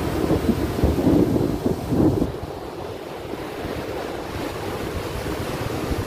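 Ocean surf breaking and washing up a sandy beach, with wind buffeting the microphone; the rumble is heaviest in the first two seconds and then eases.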